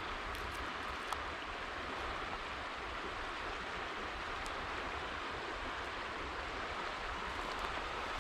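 Steady rush of flowing river water, an even hiss with no change in level.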